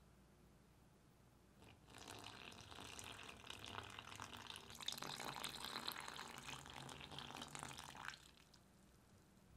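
A thin stream of lukewarm water poured from a glass jug into bread flour in a glass bowl for bagel dough. It starts about two seconds in, runs steadily for about six seconds, and stops sharply.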